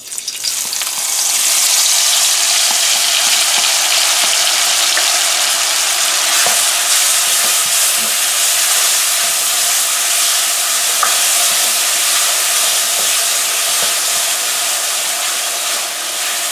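Curry paste (curry powder, cumin, garam masala, garlic) and sliced onions frying in hot oil in a metal pot: a loud, steady sizzle that swells over the first second or two as they hit the oil, with light scraping from a plastic spoon stirring. This is the paste being cooked down in the oil before the soya chunks go in.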